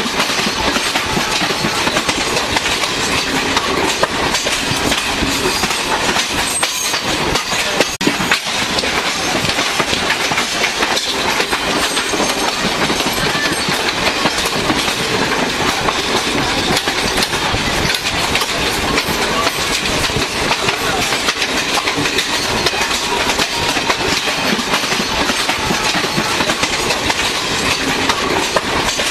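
Two passenger trains running side by side on adjacent tracks, heard from an open coach doorway: a loud, steady clatter of steel wheels over the rails, with no let-up.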